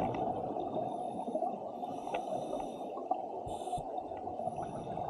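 Scuba breathing heard underwater: a steady bubbling, gurgling rush of regulator exhaust, with short hisses of air about two and three and a half seconds in.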